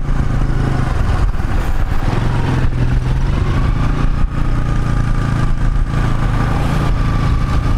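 Motorcycle engine running steadily while riding along a road, heard from the pillion seat with wind noise on the microphone. A faint steady high whine comes in about three seconds in.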